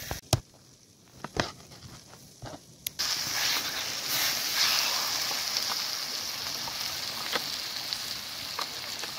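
Chicken curry sizzling in an iron kadhai over a wood fire, a ladle stirring through it, starting about three seconds in as a steady hiss. Before it come a few short sharp knocks.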